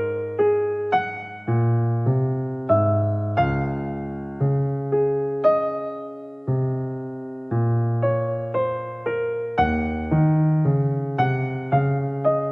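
Slow, gentle piano music: single notes and chords struck about one to two a second, each fading away, over low bass notes.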